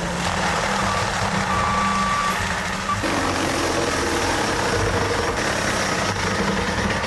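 A heavy vehicle engine running, with a steady low drone under a dense wash of noise, and one brief high tone about a second and a half in.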